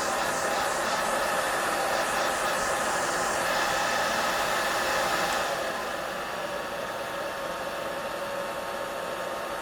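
Blow dryer running with a steady airy whoosh. A little over halfway through it drops to a quieter, duller level and stays there.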